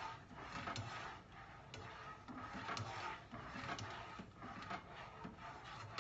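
Spatula stirring eggs in a skillet: faint, irregular scrapes and taps of the spatula against the pan.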